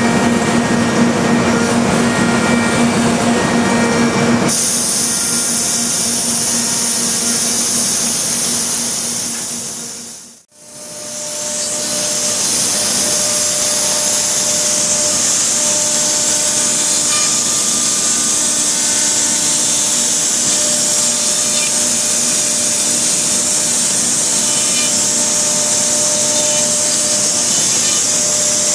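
Homag CNC router spindle cutting hardwood with a straight end mill: a steady high hiss of the cut over a faint spindle whine. About four seconds in the low rumble drops away and the hiss gets sharper. Around ten seconds in the sound fades out and straight back in.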